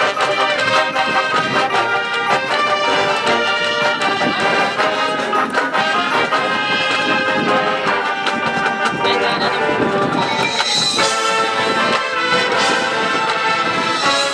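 Marching band playing live: the brass section sounds full sustained chords, with struck percussion accents mixed in.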